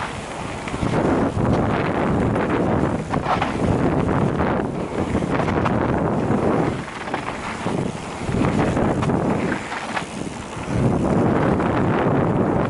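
Mountain bike riding down a gravel trail, heard from an action camera on the bike or rider: wind rushing over the microphone mixed with tyres rolling on loose gravel and small clicks and rattles from the bike. The rush swells and eases every few seconds with the rider's speed.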